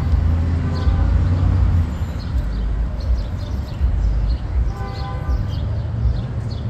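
Low, steady rumble of a heavy vehicle's engine, with a short pitched tone about a second in and again about five seconds in.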